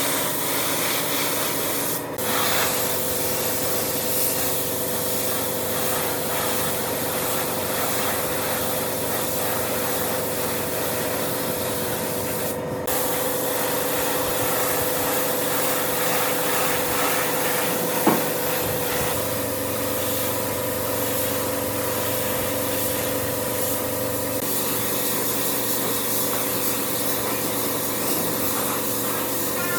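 Electric sander running steadily against wood, cutting out for an instant twice and with a single short knock about two-thirds of the way through.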